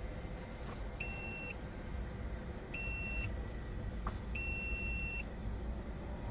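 Three electronic beeps of the same high pitch, two short ones about a second and three seconds in and a longer one around four and a half seconds, over a steady low background hum.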